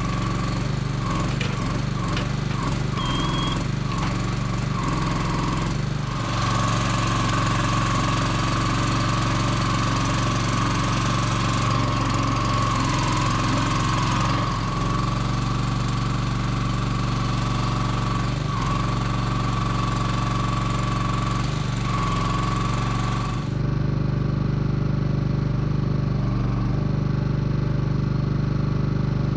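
Log loader crane's engine and hydraulics running as the crane is worked: a steady engine drone, with a loud hydraulic whine from about six seconds in that stops a few seconds before the end, and shorter bursts of whine at the start as the control levers are moved.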